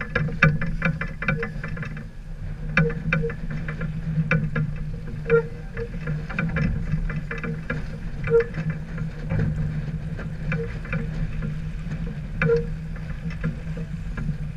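Sounds aboard a sailboat under way: a steady low hum with irregular sharp clicks and knocks every second or few.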